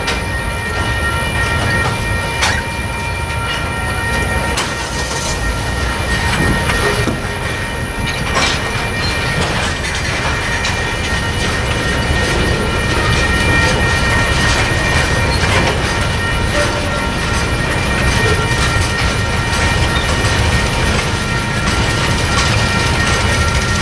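Tank cars and a covered hopper of a freight train rolling past: a steady rumble of steel wheels on rail with repeated clicks over rail joints, and a steady high-pitched whine throughout.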